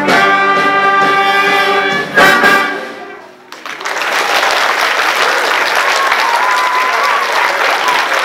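A school concert band of saxophones, clarinets, flutes and trombones holds its closing chord, then hits a short accented final chord about two seconds in that rings away. About a second later the audience breaks into steady applause.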